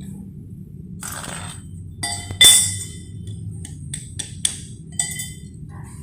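Steel parts being clinked and tapped together: a scrape about a second in, then several sharp metallic knocks that ring briefly, the loudest about two and a half seconds in and a quick run of four more near the end, over a steady low hum.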